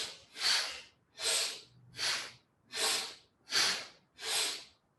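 A person breathing forcefully and rhythmically through the nose, alternating inhales and exhales in time with a yoga spinal flex, about seven strong breaths in five seconds.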